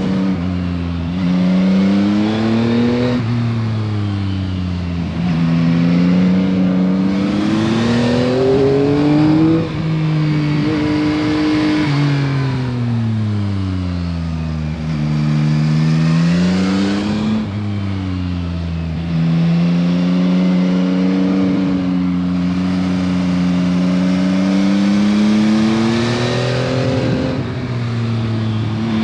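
Yamaha MT-09 SP's inline three-cylinder engine through its stock exhaust, heard from the bike while riding: the engine note climbs and falls again and again as the rider accelerates, shifts gears and rolls off, over steady wind and road noise.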